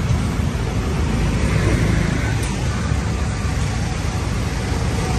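Mahindra Scorpio SUV pulling away at low speed, its engine running steadily, with road traffic around it.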